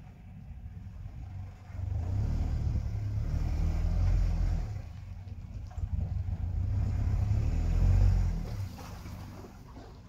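All-terrain vehicle's engine running under load as it drives through marsh grass, a low rumble that grows louder about two seconds in and eases off near the end.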